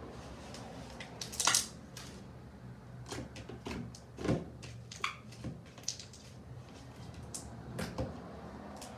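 Homemade slime being squeezed and stretched by hand, giving irregular squelches and pops, the loudest about one and a half seconds in.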